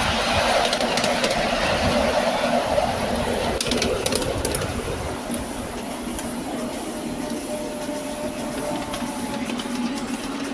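Miniature steam railway train running, heard from a passenger car: the wheels rumble along the track with a few clicks over the rail joints, a little quieter from about five seconds in.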